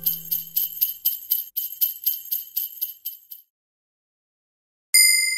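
Jingle bells shaken in a steady rhythm, about four shakes a second, stopping about three and a half seconds in. Near the end a single bright chime rings out and slowly fades.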